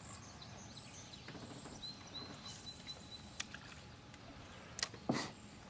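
Faint outdoor background hiss beside the water, with a thin high chirping tone about two seconds in and a few light clicks and a short knock near the end.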